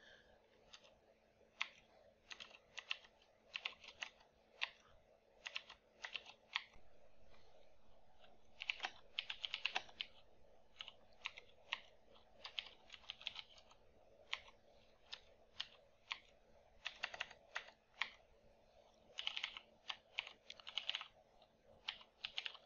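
Computer keyboard typing in short irregular bursts of keystrokes, with brief pauses between bursts.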